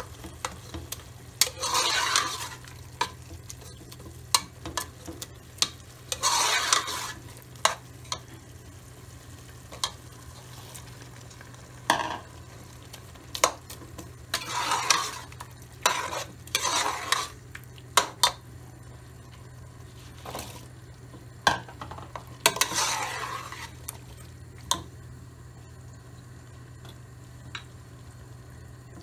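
Metal spoon stirring and scraping minced meat in a stainless steel pot: several scraping strokes lasting about a second each, with many sharp clinks of the spoon against the pot in between.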